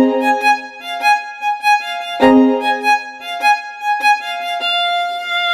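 Music: a melody of held, bowed-string-like notes, with a strong accented note at the start and another about two seconds in, ending on a long held note.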